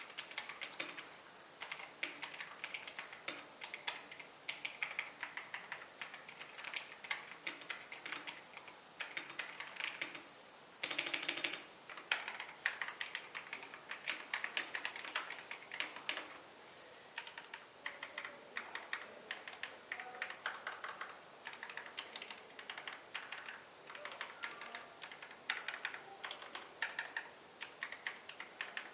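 Epomaker TH96 gasket-mounted mechanical keyboard being typed on at a steady pace, a continuous run of irregular keystroke clicks several a second, with a brief dense flurry of strokes about eleven seconds in.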